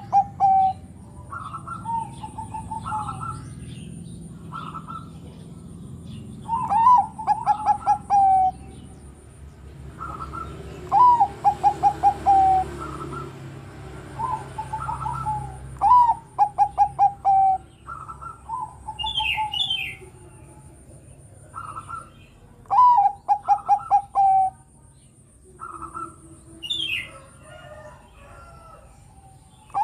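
Zebra dove (perkutut) of the Bangkok song strain cooing. It repeats phrases several times with pauses between, each a short rising note followed by a quick rolling run of coos. Brief higher chirps come twice in the second half.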